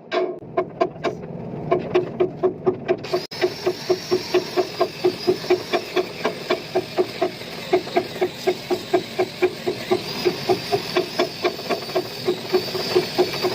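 Angle grinder with a wire cup brush, starting about three seconds in and running with a steady high whine and a scraping hiss. An even thumping pulse of about four beats a second runs throughout.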